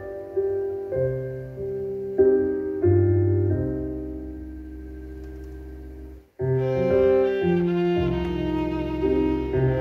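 Violin playing a slow improvised melody over a piano accompaniment. About six seconds in, the sound cuts out for an instant, then returns with the bowed violin tone fuller and stronger.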